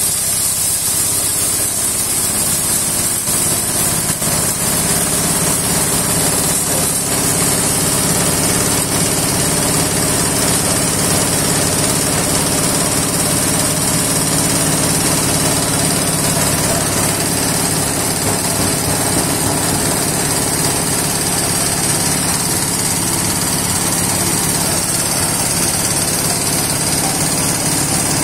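Hammer mill running steadily under its small single-cylinder diesel engine while crushing glass bottles into powder: an even, loud machine drone with a hiss of grinding glass over the top.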